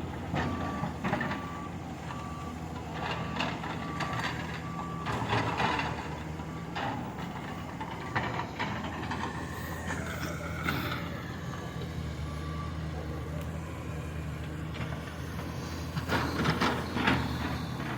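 A heavy diesel machine runs steadily while its reversing alarm beeps, short evenly spaced beeps about two a second that stop and start again. Scattered clanks and knocks are heard over it.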